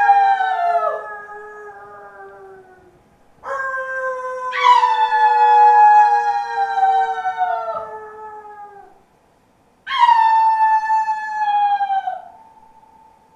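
Three loud howl-like tones from the performance's sound score. Each starts suddenly, with several pitches sounding together, and slides slowly downward in pitch as it fades over a few seconds: one already sounding at the start, one about four seconds in, and one about ten seconds in.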